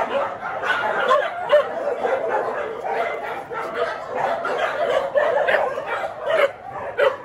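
A group of dogs barking and yelping over one another in a busy, irregular chorus.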